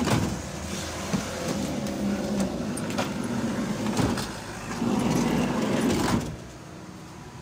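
Toyota HiAce sliding door worked by its outside handle, rumbling along its track as it is slid open and shut, with sharp latch and handle clicks and a heavy clunk about four seconds in as it shuts.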